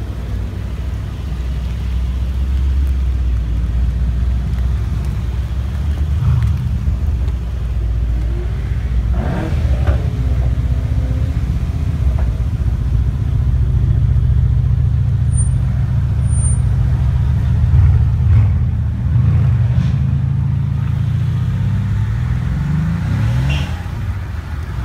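Mercedes-AMG cars rumbling slowly past one after another, a deep steady engine note with a brief rise in revs around nine seconds in and again near the end.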